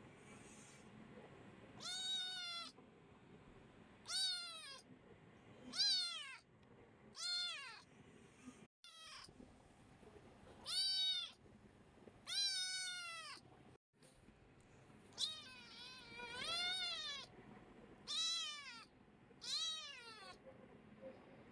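A kitten meowing over and over: about ten high-pitched meows, each rising and then falling in pitch, a second or two apart.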